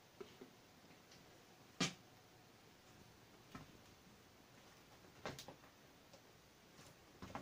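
A few faint, sharp clicks and knocks over a quiet background, the sharpest just under two seconds in.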